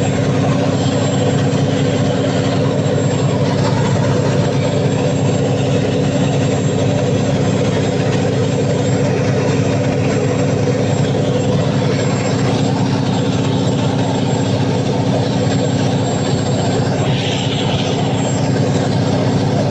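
Cummins KTA50 V16 diesel engine of a 750 kW generator set running at steady speed during a load test after a general overhaul, with a thin steady high whine over the engine's drone.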